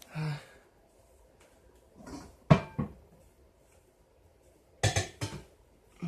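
Pots and pans clanking as they are handled: two pairs of sharp knocks, the first about two and a half seconds in and the second near five seconds, some with a brief metallic ring.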